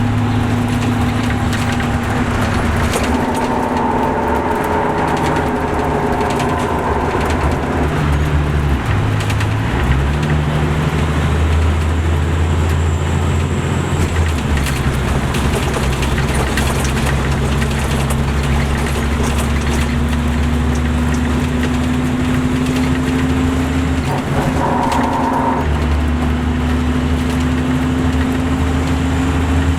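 Caterpillar C13 diesel engine of an MCI D4500CL coach running under load, its pitch changing in steps several times as the Allison automatic transmission shifts, with a higher whine at times.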